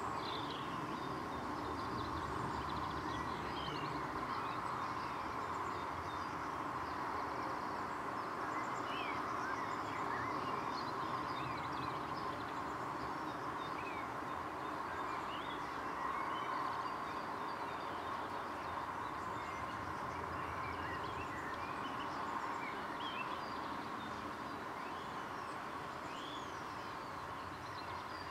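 Outdoor garden ambience: a steady background hum and rumble, with small birds chirping in short calls now and then.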